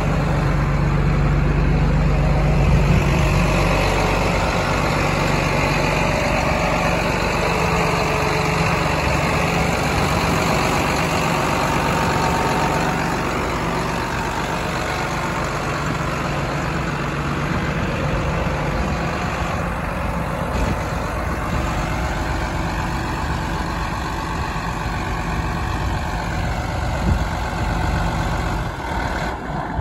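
John Deere 8200 tractor's diesel engine idling steadily.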